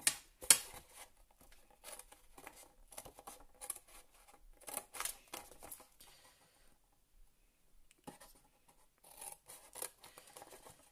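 Scissors snipping into card: a run of short, sharp cuts, the loudest two right at the start, a pause of about a second and a half past the middle, then more snips near the end.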